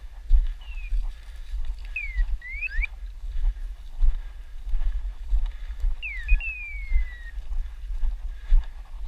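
Low rumbling buffets and thumps from a body-worn camera as the wearer moves through dense scrub. Over them come a few short whistled notes sliding down in pitch, in two groups.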